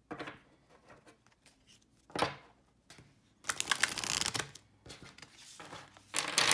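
A deck of oracle cards on US Games Systems cardstock being riffle-shuffled: rapid flutters of snapping cards, a short one about two seconds in, a longer one lasting about a second a little after the middle, and a loud one near the end.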